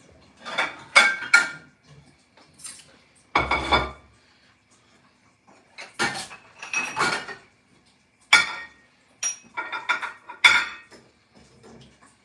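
Dishes and drinking glasses clinking and clattering as they are lifted from a wire dish rack and set down on a plate on the counter. There are several separate bouts of sharp clinks, each with a brief ringing.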